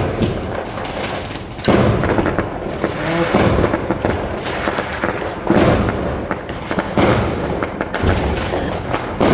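Fireworks going off: a string of sharp bangs every second or so, with crackling and rumbling between them.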